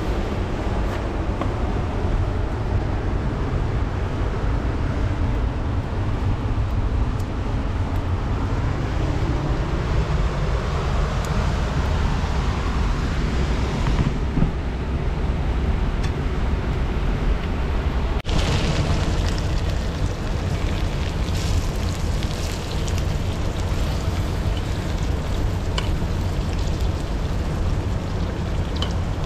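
Steady rushing roar of a fast-flowing mountain river, with a low rumble of wind on the microphone. The sound changes abruptly twice, about halfway and two-thirds of the way through.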